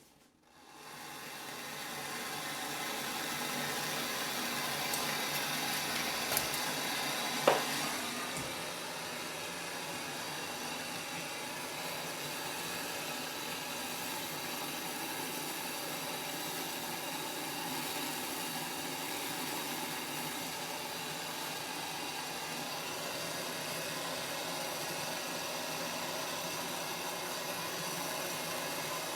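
Small gas blowtorch flame hissing steadily, lit or opened up about half a second in, as it heats a copper pipe end for tinning with solder. A single sharp metallic click about a quarter of the way through.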